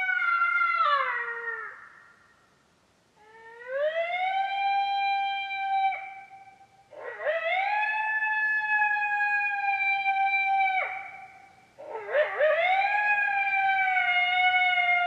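Coyote howl call: a series of long, drawn-out howls used to draw in territorial coyotes. Each howl sweeps up, holds a steady pitch for a few seconds, then falls off. One trails off about a second and a half in, and three more follow with short gaps between them; the last opens with a wavering yip-like break.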